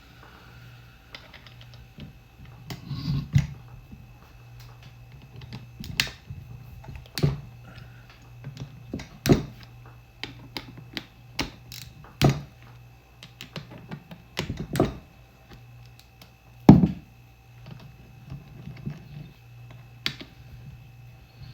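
Hand tools and small metal carburetor parts knocking and clicking during teardown: about a dozen scattered, irregular sharp knocks, over a steady low hum.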